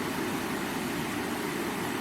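Flowing river water: a steady, low rushing with no breaks.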